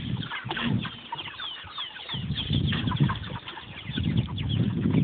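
A crowded flock of white meat chickens cheeping and clucking: many short, high, sliding cheeps overlapping, with bursts of wing flapping.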